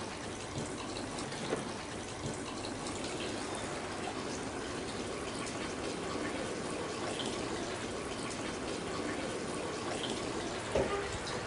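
Water being poured steadily over a soil-covered terrain model, with the runoff splashing down into a bucket.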